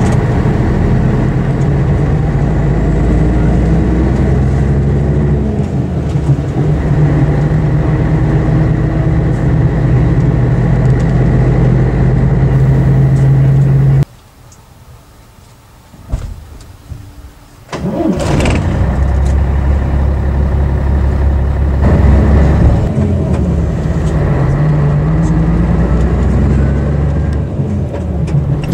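Scania-chassis Ikarus EAG 395 bus diesel engine running under way, heard from inside the bus, its pitch rising and falling as it revs through the gears. About midway the engine sound drops away suddenly for about three and a half seconds, then comes back with a sharp click.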